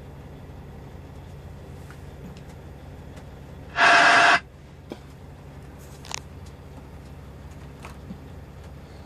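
CB radio on channel 19 breaking squelch as it receives a signal: a loud burst of static about half a second long, about four seconds in, over a steady low hum. A few faint clicks follow.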